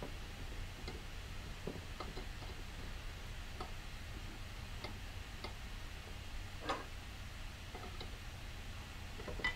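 Faint, scattered light metallic clicks and taps from handling the small brass fittings of a Coleman 530 stove and a wrench while the nut is tightened down, with a slightly louder click about two-thirds of the way through and another near the end.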